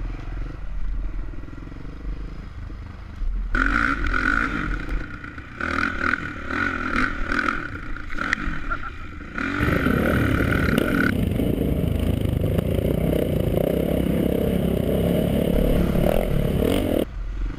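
Off-road motorcycle engines running and revving on a dirt trail, with scraping and clattering. A steady high whine runs through the middle stretch, and the engine sound is fullest and steadiest in the second half.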